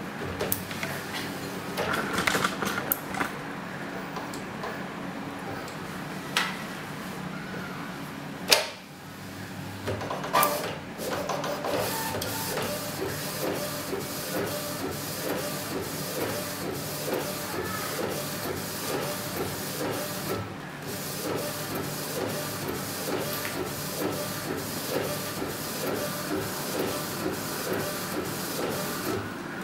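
Epson-based A4 flatbed inkjet printer printing on a T-shirt. First come scattered mechanical clicks and knocks, with one sharp loud click about a third of the way in. After about twelve seconds the printhead carriage settles into a steady, fast, even rhythm as it shuttles back and forth laying ink on the fabric.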